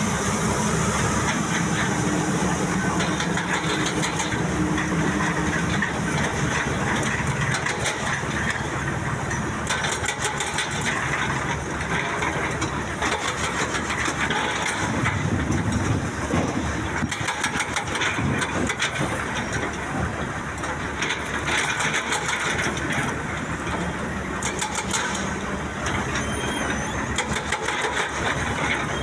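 Heavy construction machinery, an excavator loading a dump truck, with its diesel engine running steadily throughout. Stretches of rapid clattering are heard at several points.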